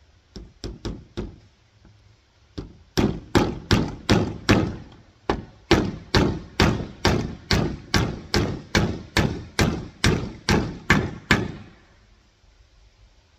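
Claw hammer driving a nail through corrugated PVC roofing sheet into the wooden roof frame: a few light taps to set it, then about twenty steady blows, roughly two a second, stopping shortly before the end.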